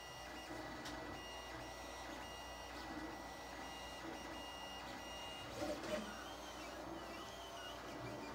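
Lulzbot TAZ 3 3D printer's stepper motors whining as the print head moves, in short steady tones that start and stop. From about six seconds in the tones warble up and down, and a brief knock comes just before that.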